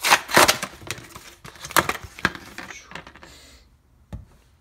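Stiff plastic blister packaging crackling and snapping as it is pried off its card backing. The crackles come in two loud clusters in the first two and a half seconds, then fade to quieter handling, with a single knock near the end.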